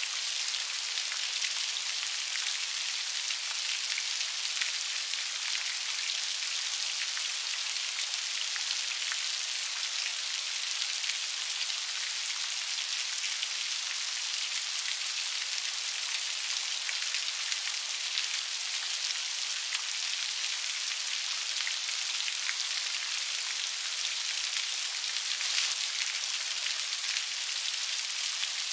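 Steady rain, with many individual drops ticking on a hard surface.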